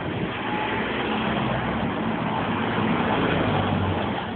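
Bus engine running close by, a steady low hum under general street noise.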